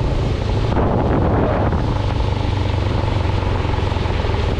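Motorcycle engine running steadily at road speed, with wind noise rushing over the microphone.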